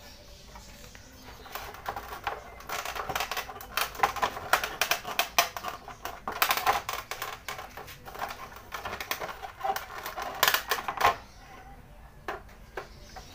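Plastic side fairing of a Yamaha Mio Sporty scooter clicking, snapping and rattling as it is flexed and pulled loose by hand. There is a quick, irregular run of sharp clicks from about two seconds in until it stops near the end.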